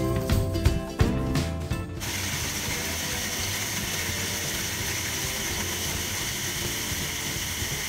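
Background music, then about two seconds in a small electric food chopper starts and runs steadily, its blades crushing a load of Oreo cookies.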